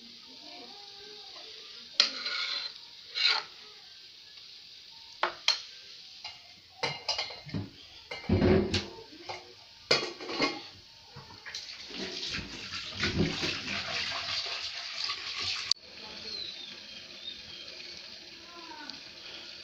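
Metal cooking pots being handled on a gas stove to set up a steamer: scattered clinks and knocks of metal on metal, clattering in the middle, and a few seconds of rushing noise that cuts off suddenly.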